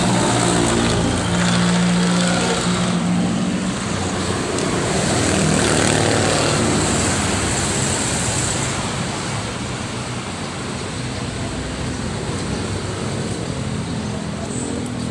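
Road traffic going by: a vehicle's engine hum in the first three seconds, then a second vehicle whose tyre noise swells about six seconds in and fades away.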